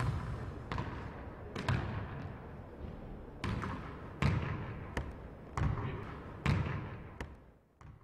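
Basketballs bouncing on a hardwood gym floor, single echoing bounces about a second apart that fade out near the end.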